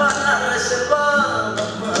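Flamenco music: a singer holds a long, wavering, ornamented sung line over low sustained accompaniment.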